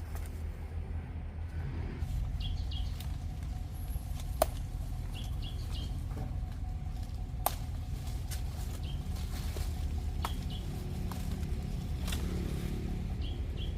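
Outdoor ambience: a steady low rumble with short high bird chirps in twos and threes every few seconds, and two sharp clicks, one about four seconds in and one about seven and a half seconds in.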